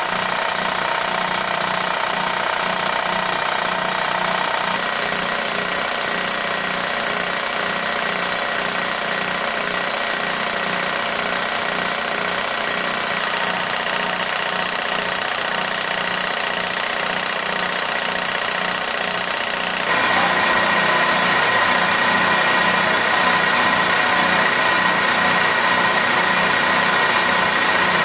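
A plastic-film heat perforation machine running steadily. It makes a continuous mechanical hum with a fast, even pulsing as its pin head perforates the film without stopping. The sound gets louder and brighter about twenty seconds in.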